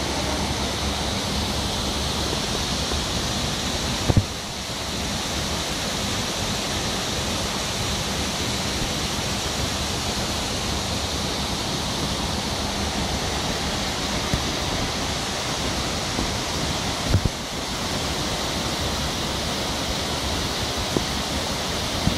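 Steady rush of splashing water from a swimming-pool water feature, with two brief knocks, about four seconds in and again about seventeen seconds in.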